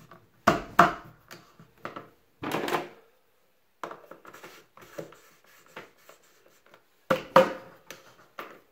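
Hard plastic elbow fittings being pushed into a water softener's plastic bypass valve: a few sharp plastic clicks and knocks, loudest about half a second in and again near seven seconds, with a short scrape about two and a half seconds in and small ticks between.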